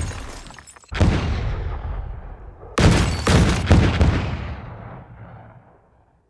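Synthesized sound-design impacts from the Krotos Studio Genesys sound pack, boom-like and heavy in the low end: one hit about a second in, then three more in quick succession about two seconds later, each dying away in a long rumbling tail that fades out near the end.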